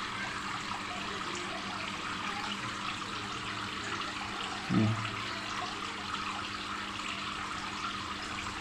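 Water running and trickling steadily into a fish pond, with a steady low hum underneath. A brief low sound comes about five seconds in.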